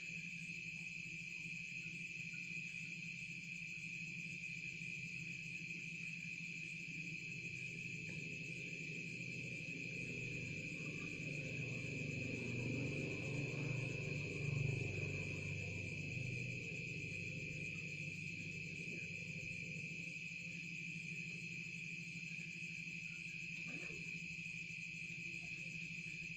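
Steady, continuous high-pitched trilling of an insect chorus, with a low rumble that swells up through the middle and fades again.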